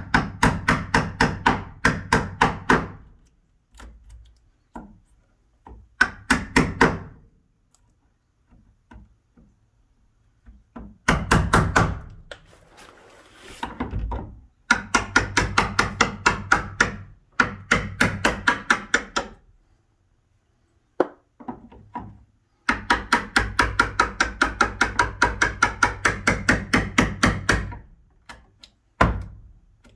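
Hammer tapping a wood chisel in quick runs of light blows, about five a second, with short pauses between the runs: the chisel is cutting a mortise into a wooden door jamb around the latch hole.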